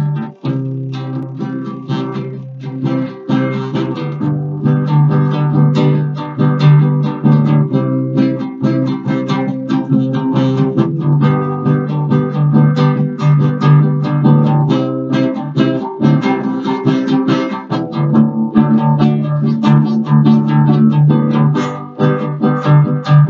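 Acoustic guitar playing the instrumental intro of a song: a steady run of chords over held low notes, with no singing.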